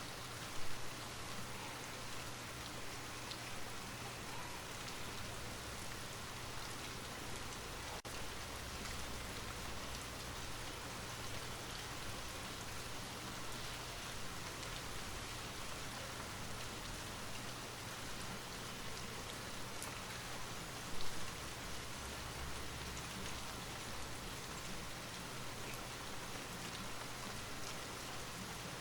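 Light rain falling steadily, an even hiss of raindrops, with two brief louder spots about a second in and about three-quarters of the way through.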